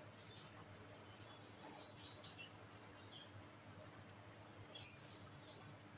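Near silence: faint room tone with a steady low hum and a few scattered faint high chirps.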